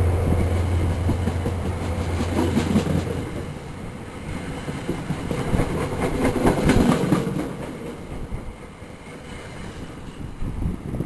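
Metro-North commuter train rolling past as it arrives: the GP40FH-2 diesel locomotive's engine drone fades out over the first few seconds, then the passenger coaches' wheels clatter and click over the rail joints in bunches, the rail noise dying down as the trailing cab car goes by.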